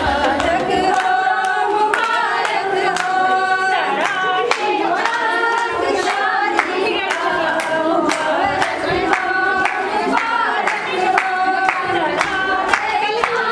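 A group of women singing a Kashmiri wedding song together, clapping their hands in a steady rhythm.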